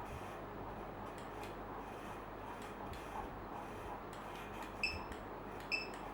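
Handheld USB barcode scanner giving two short, high beeps about a second apart near the end, each confirming a successful scan, over faint clicks and rustle of the items being handled.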